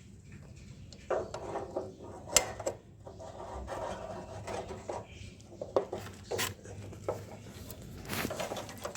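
Metal hand tools and brake parts clinking and scraping, with a few sharp clicks, during hand reassembly of a motorcycle's rear drum brake.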